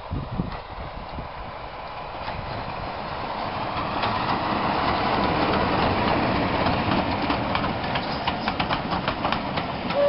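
A BR Class 25 diesel locomotive's Sulzer six-cylinder engine running under power as it approaches and passes, growing louder to a peak about halfway. In the second half comes a rapid clickety-clack of the coaches' wheels over the rail joints.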